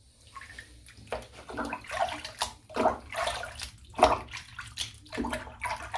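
Water splashing in a bathroom sink as shaving soap is rinsed out, coming in uneven surges.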